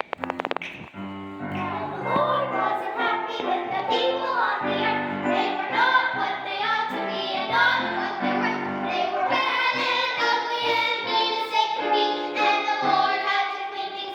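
Children's choir singing a song with instrumental accompaniment, after a few quick clicks right at the start.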